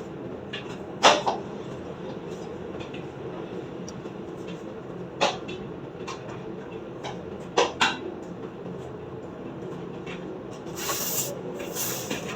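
Light rain falling, a steady wash of noise with a few sharp knocks of drops hitting a hard surface, and a brief brighter hiss near the end.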